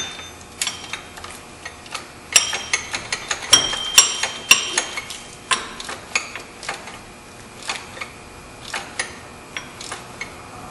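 Hand ratchet clicking in uneven runs as a belt tensioner's mounting bolt is tightened into the aluminium engine block, some clicks ringing like metal on metal. The clicks are thickest and loudest between about two and five seconds in, then grow sparser.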